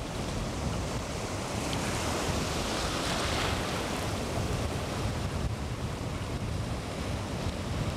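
Ocean surf washing and foaming at the shoreline, with wind on the microphone; the wash swells a couple of seconds in and then eases.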